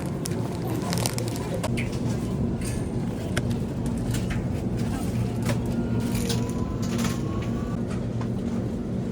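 Supermarket background noise: a steady low hum with frequent irregular clicks and clatter.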